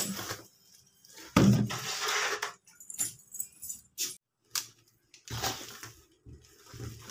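A woven plastic sack cover rustling as it is pressed down over a bowl. From a little past halfway, a hand stirs thick vada batter in a steel bowl, giving uneven soft slaps and squelches.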